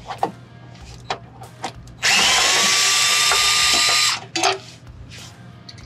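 Cordless drill/driver spinning a socket to back out a 14 mm bolt, running for about two seconds from about two seconds in. Its motor whine rises briefly and then holds steady, with light clicks of tool handling before it and a single knock just after it stops.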